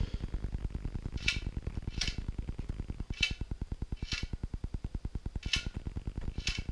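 Shimano Dura-Ace C24 front wheel spinning, with a sharp metallic click roughly once a second, not quite evenly spaced, over a fast, steady low ticking. The rider has narrowed the click to something metallic inside the rim.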